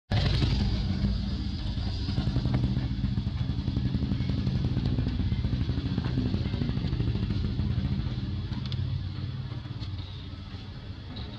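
A motor engine running with a steady low drone, easing off near the end.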